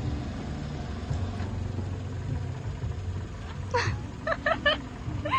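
Car engine idling with a steady low hum; near the end, several short high-pitched calls, three of them in quick succession, then one rising.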